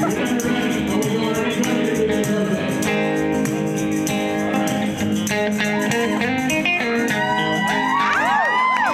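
A live rock band plays, with guitars and a male vocalist singing into a microphone. Near the end, many high voices slide up and down over the music.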